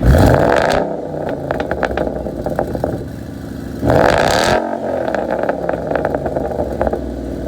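V8 muscle car exhaust revved twice, a sharp blip right at the start and another about four seconds in, each rise and fall followed by a run of pops and crackles as the revs drop back to idle.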